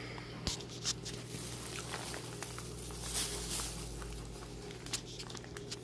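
Handling noise: scattered light clicks and rustles, with a brief hiss about three seconds in, over a steady low hum.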